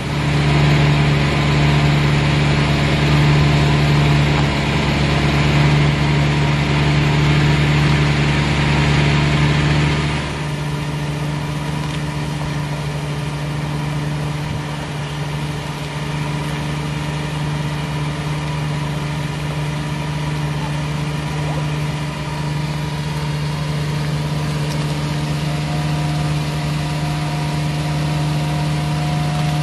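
Renault 4's small four-cylinder engine running at a steady raised speed. About ten seconds in it drops back to a steady idle.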